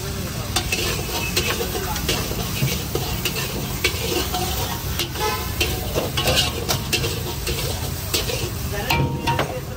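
A flat metal spatula scraping and clanking against an iron kadai again and again as egg fried rice is stirred and tossed, with the rice sizzling in the hot pan.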